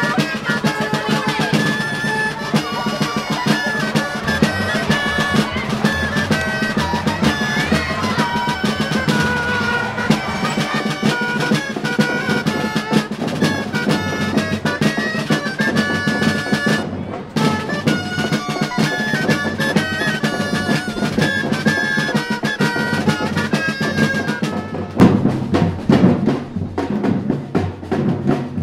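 Music with a melody over a steady beat, then about 25 seconds in it gives way to a street drum group pounding a fast rhythm on barrel drums.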